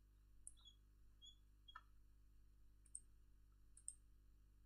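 Near silence: room tone with a few faint, scattered clicks from a computer mouse as a document is scrolled.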